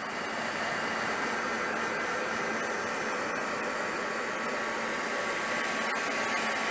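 Handheld craft heat gun blowing hot air steadily, a constant rush of air with a faint hum in it, drying a wet coat of crackle medium.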